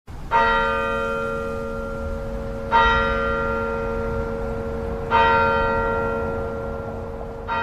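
A church bell tolling, struck four times about every two and a half seconds, each stroke ringing on into the next.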